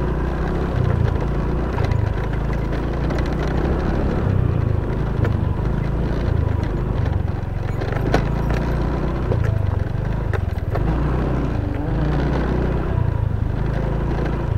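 Honda Vario scooter's single-cylinder engine running under load on a broken, rough road, its note rising and falling, with a few sharp knocks as the bike jolts over the bumps on worn-out shock absorbers.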